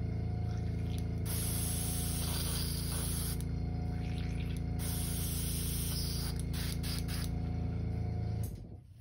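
Airbrush spraying in several hissing bursts as leftover candy red paint is blown through to clean it out, over the steady hum of the air compressor, which shuts off near the end.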